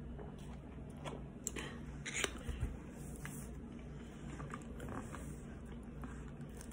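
Faint mouth sounds of a person drinking soda through a straw from a large foam cup and swallowing, with a few soft clicks and slurps about two seconds in.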